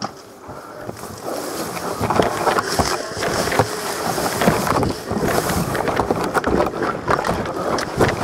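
Rustling, scraping and handling noise close to the microphone, the kind made by a player moving through vegetation with a gun-mounted camera. It grows louder after the first second and is full of small irregular clicks and knocks.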